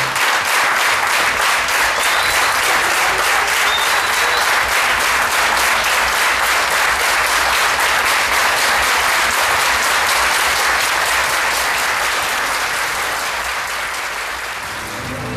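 Large crowd of dancers clapping their hands in applause, a dense, sustained patter of claps that grows a little quieter near the end.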